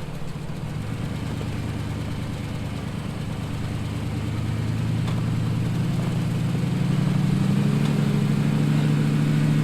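Off-road vehicle's engine running at low speed, rising gradually in pitch and loudness over the second half as it is given more throttle.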